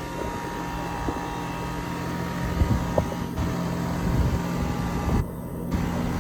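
New Goodman central air conditioner running in cool mode: a steady hum of the compressor and fan, with a few soft knocks about halfway through.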